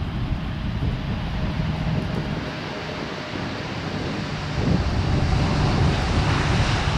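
Jet engines of a Boeing 787-9 Dreamliner, its GE GEnx-1B turbofans, making a loud rumble with a faint steady whine. The noise grows louder about four and a half seconds in.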